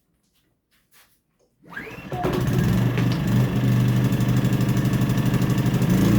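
Powerhorse 2300i inverter generator engine starting on choke for its first run: quiet at first, it catches about two seconds in and then runs steadily with a regular pulsing beat.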